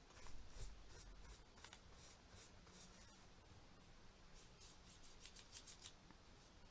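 Near silence: quiet room tone with faint small ticks and rustles, a quicker run of them about four and a half to six seconds in.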